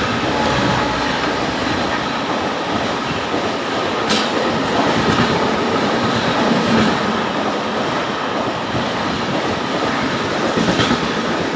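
Coaches of the Pune–Ahmedabad Duronto Express rushing past at speed through a station without stopping, a steady loud rush with wheels clattering over the rail joints. Two sharp clicks stand out, about four seconds in and again near the end.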